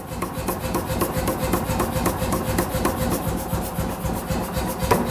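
Mechanical power hammer striking a red-hot wrought iron bar on its die: fast, even blows, several a second, over a faint steady machine hum.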